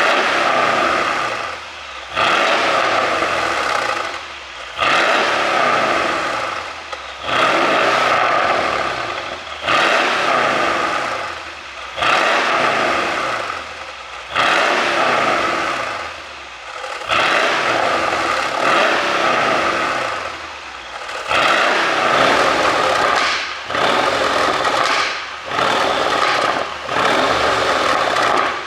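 Mercedes-AMG CLS 63's twin-turbo V8 revved repeatedly through a tuned exhaust, about a dozen sharp blips a couple of seconds apart, each falling away with pops and crackles on the overrun from a pop-sound ECU tune.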